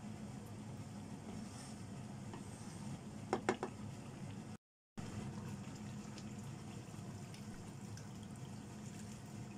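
Chicken curry simmering steadily in a nonstick wok. About three seconds in there is a quick run of three or four knocks, the wooden spatula tapped against the pan, and a brief dropout to silence follows. Near the end, hot water is poured into the curry.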